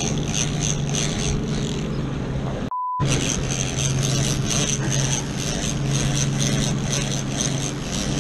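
Boat motor running steadily under way, with water and wind rushing past. A short single-tone censor bleep replaces the sound for a moment about three seconds in.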